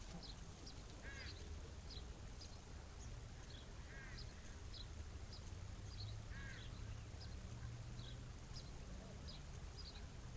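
Faint outdoor ambience of birds calling: short high chirps every second or so and three louder calls that rise and fall in pitch, over a low steady rumble.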